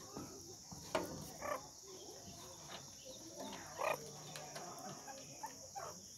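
A few faint, short chirps from meerkats, about one, one and a half and four seconds in, over a steady high hiss.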